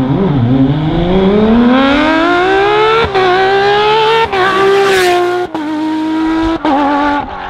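Rally car engine slowing briefly, then accelerating hard with a steadily rising pitch and shifting up through the gears about four times, each shift a short break with a drop in pitch.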